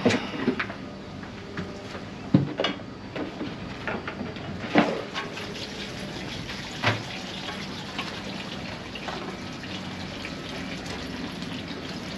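Diesel fuel pouring from the hull's tank drain through a funnel into a plastic jerry can, a steady running gush as the fuel tank is drained. Several sharp clunks of plastic cans being handled come in the first seven seconds.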